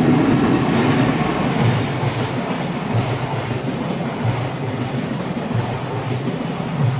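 Electric train passing close by at speed. Its wheels thump over the rail joints in a steady clickety-clack rhythm, loudest at the start.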